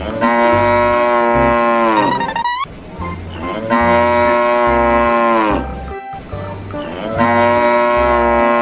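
Cow mooing three times, each a long call of about two seconds that drops in pitch at the end, over background music with a steady bass beat.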